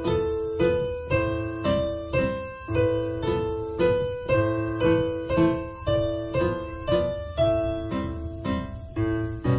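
Digital piano played four hands as a duet: low bass notes under chords and a melody, struck at an even beat a little under two notes a second, each note dying away before the next.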